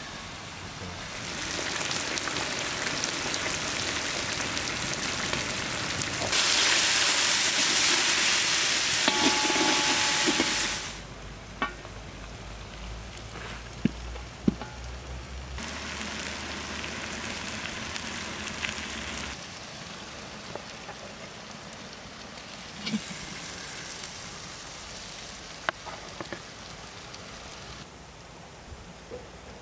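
Food sizzling and frying in oil in a large pan over a wood fire. The sizzle comes in several stretches that change level abruptly and is loudest from about six to eleven seconds in. Occasional short clicks come from a metal spoon against the pan as the food is stirred.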